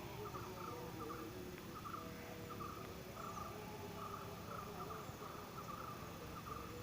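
Insect chirping in short trilled pulses, repeating about twice a second over a steady outdoor background.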